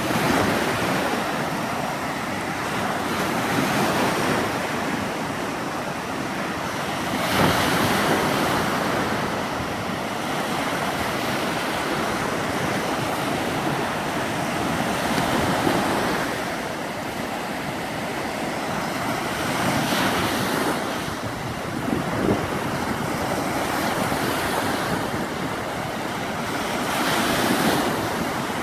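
Lake Michigan waves breaking and washing up on a sandy shore: a continuous wash of surf that swells every few seconds as each wave breaks.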